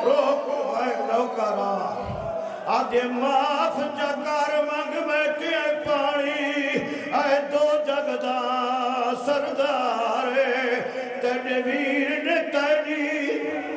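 A man's voice chanting a mournful recitation through microphones, holding long notes with a wavering vibrato.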